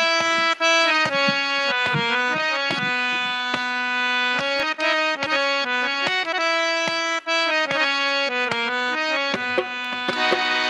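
Harmonium playing a held, stepwise melody with a dholak drum beating a steady rhythm under it: the instrumental introduction to a devotional bhajan.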